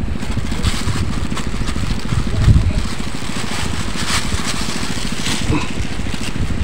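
A small engine running steadily at an even low pulse, with a few short clicks and rustles close by.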